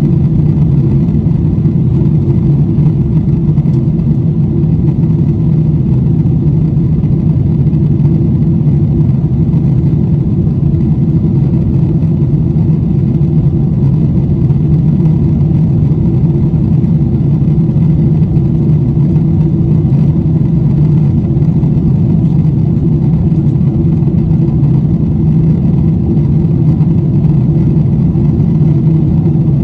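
Steady low rumble and rush of engine and airflow noise inside the cabin of a Boeing 747-8i with its four GEnx-2B engines running, holding even in pitch and level.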